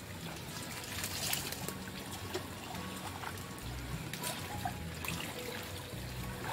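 Water trickling, with light scattered splashes from someone washing or bathing in shallow water.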